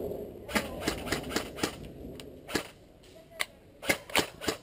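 Airsoft gunfire: about ten sharp snapping shots, a quick run of five in the first second and a half, then single shots spaced roughly half a second to a second apart.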